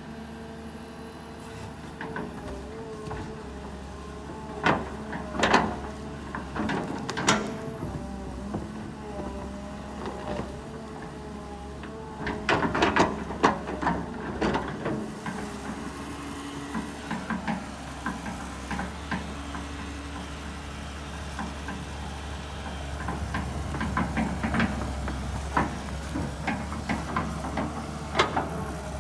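Kobelco SK200 excavator engine running steadily while the machine works stumps, with sharp knocks and cracks coming in clusters, several about five to seven seconds in, a dense run around the middle and more near the end.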